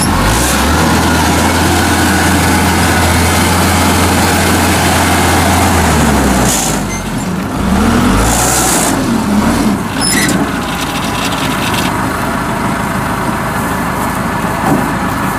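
Kubota combine harvester's diesel engine running, a steady low drone that shifts about six seconds in to a wavering pitch, with short hisses about seven and eight seconds in.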